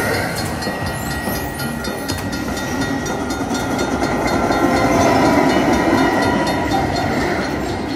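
Train sound effect from a Luxury Line Cash Express slot machine: a rhythmic clickety-clack with a rumble that swells about halfway through, over casino din with steady electronic tones from the machines.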